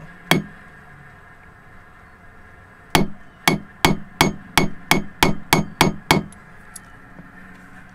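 Hammer giving gentle taps to a steel socket used as a drift, driving out a carbon-seized Yanmar 2GM diesel pre-combustion chamber: one tap, a pause, then a run of about ten taps, about three a second.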